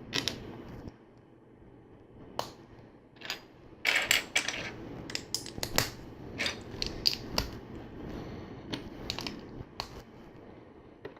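Loose plastic LEGO pieces clicking and clattering as they are picked through and pressed together. A string of sharp clicks, with a denser rattle of pieces about four seconds in.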